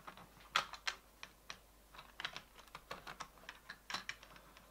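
Irregular small clicks and taps, several a second, of plastic OO gauge model railway coaches being handled and set onto the track.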